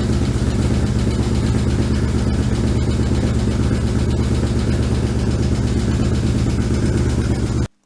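A 1994 BMW R1100GS's air/oil-cooled boxer twin idles steadily, running on fresh oil after an oil and filter change. It cuts off suddenly near the end.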